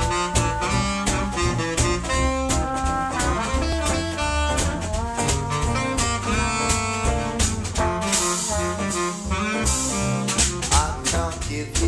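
Small swing jazz band playing an instrumental introduction: saxophone and trombone over upright double bass, guitar and a drum kit keeping a steady beat.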